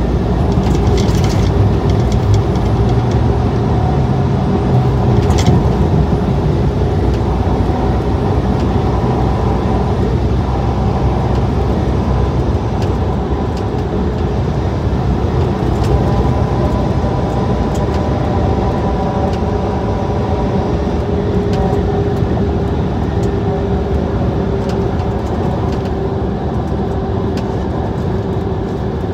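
Steady road and engine noise inside a truck cab moving at highway speed: a continuous low rumble with faint steady tones over it and a few small clicks in the first few seconds.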